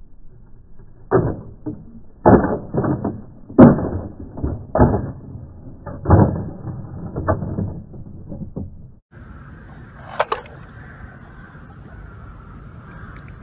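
Hard plastic toy car knocking and scraping on stone paving slabs, a string of irregular knocks. About nine seconds in, the sound changes abruptly to a steady wash of swimming-pool water, with one sharp click.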